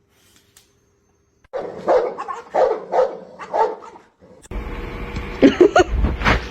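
A dog barking about six times in quick succession. Then a steady background noise sets in, with a few short, high rising yips.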